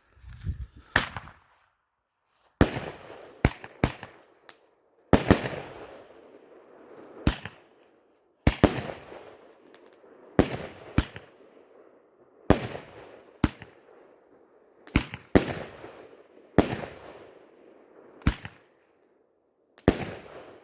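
Orion 'King Brocade' firework firing shot after shot: about fifteen sharp bangs, one every second or two, each trailing off in a fading hiss.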